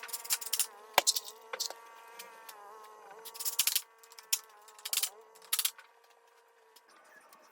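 A small motor's steady buzzing hum, with sharp clicks, knocks and short scraping bursts over it; the hum cuts off about seven seconds in.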